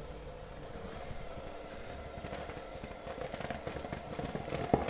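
Electric mixer running at low speed, beating butter, cream cheese and icing sugar into a frosting: a steady motor hum and whir, with a short knock near the end.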